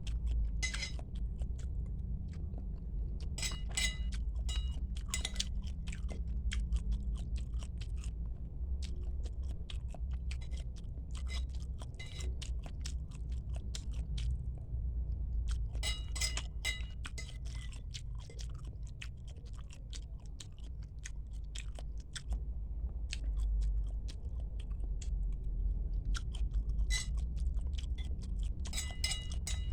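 Close-miked chewing and biting while eating bakso (Indonesian meatball soup), with clusters of sharp wet clicks and crunches a few seconds in, around the middle and near the end, over a steady low rumble.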